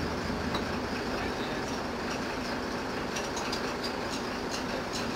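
Steady low rumble and hiss inside a standing railway carriage, with a few faint light clicks in the second half.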